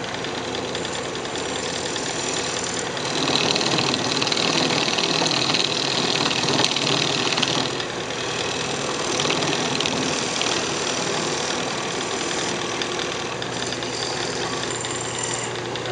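Wood lathe running with a steady hum while a turning tool cuts into the spinning maple lid, taking it down to size: a hissing scrape that is loudest from about three to seven seconds in and comes back briefly around nine to ten seconds.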